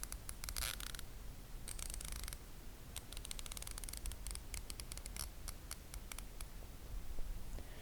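Craftsman 3/8-inch-drive 90-tooth ratchet being swung back and forth, its pawl clicking in fast, fine runs. The clicks come in short bursts, then thin into separate clicks that stop about six and a half seconds in. It sounds really smooth.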